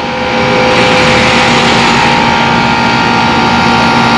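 Air conditioner's compressor and fan motor running: a steady whirring hum with several held tones, growing louder about half a second in. The system is running while being charged with refrigerant toward 65 psi after a filter drier replacement.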